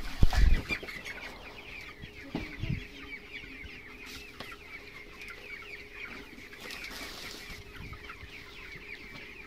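A flock of 22-day-old broiler chickens clucking and peeping in a steady dense chatter. A dull thump about half a second in is the loudest sound, with a softer knock near three seconds.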